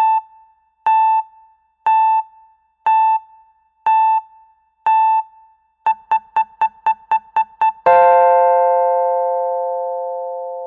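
Electronic countdown timer's end alarm: six high beeps a second apart, then a quick run of eight faster beeps, then a long chime of several notes sounding together that fades out over about three seconds, signalling that the time is up.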